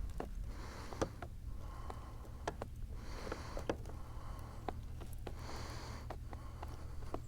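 Scattered light clicks and knocks of handling, about a dozen, over a steady low rumble.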